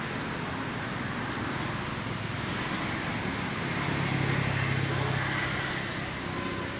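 A motor vehicle passing, its low engine hum swelling about halfway through and then fading, over steady outdoor background noise.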